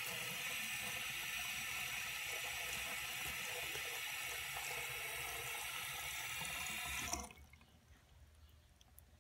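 Bathroom sink faucet running a thin stream of water into the basin in a steady splashing hiss, which cuts off suddenly about seven seconds in.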